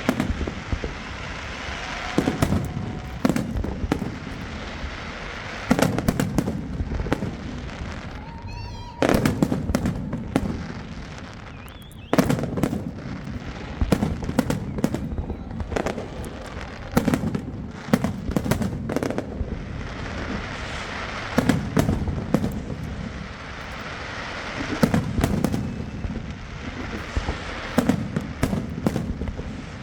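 New Year fireworks display: rapid volleys of aerial shells bursting in booms and crackles, with a brief whistle about eight seconds in.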